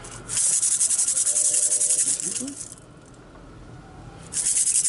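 A hand rattle shaken fast and steadily in two long bursts of about two seconds each, the second starting near the end, as a ritual rattle in a vodou rite. A faint voice is heard in the lull between the bursts.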